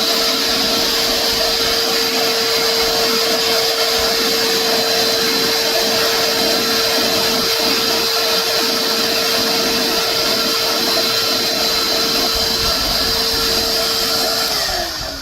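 Shop vac running through a cyclone dust separator, sucking up sawdust: a steady motor whine over the rush of air. Near the end it is switched off and the whine falls in pitch as the motor spins down.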